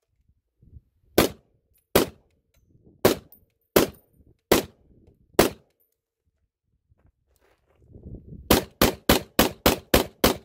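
Short-barrelled DSA Para FAL rifle in 7.62×51 mm firing semi-automatic: six single shots a little under a second apart, a pause of about three seconds, then a fast string of about seven shots at about four a second near the end. The rifle is cycling every round without a malfunction.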